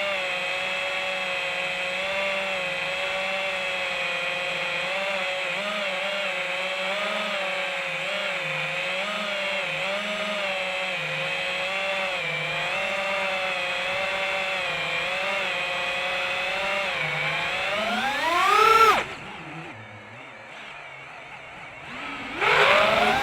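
Mark 4 FPV quadcopter's brushless motors and propellers whining steadily, the pitch wavering a little. Near the end the pitch climbs sharply, the sound drops right down for a few seconds as the throttle is cut, then rises again.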